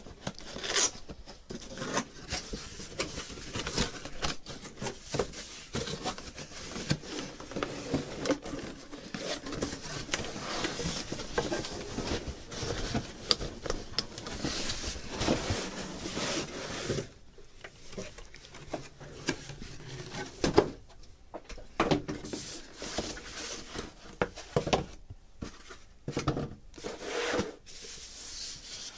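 A cardboard shipping box being opened and unpacked by hand: irregular rubbing and scraping of cardboard flaps and packing, with frequent short knocks.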